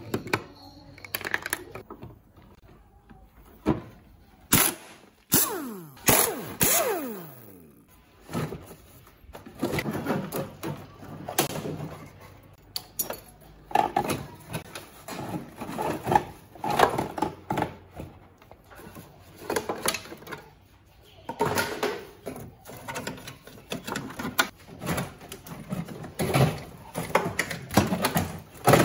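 Hard plastic car dashboard trim being pried loose and handled: irregular clicks, knocks and rattles of plastic panels and a metal pry tool, with a short falling creak about six seconds in.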